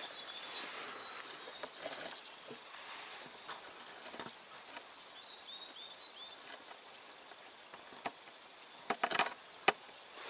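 Small birds chirping and twittering in runs of short, high calls over a steady outdoor background. A few sharp clicks come near the end.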